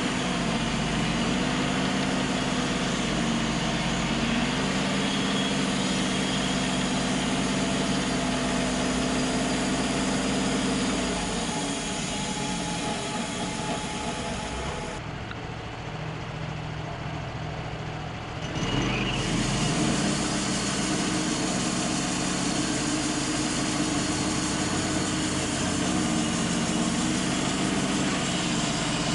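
Wood-Mizer LT35 portable band sawmill running, its engine giving a steady drone. From a little under halfway through, the sound drops and changes for a few seconds, then the steady engine sound comes back.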